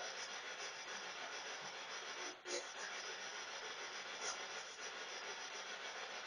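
Faint steady hiss, with two soft brief clicks about two and a half and four seconds in.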